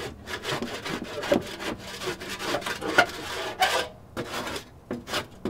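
Barbecue grill parts being scraped to clear out grease and gunk: a run of irregular rough rasping strokes with a few sharp clicks, easing off near the end.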